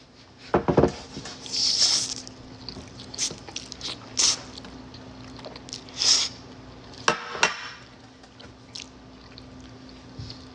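Spicy noodles being eaten close to the microphone: several short slurps and wet chewing and mouth sounds, with a faint steady hum underneath.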